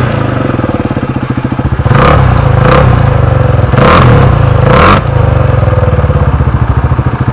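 KTM 390 Adventure's single-cylinder engine idling and blipped four times in quick rev bursts before settling back to a pulsing idle, through an exhaust with its dB killer removed.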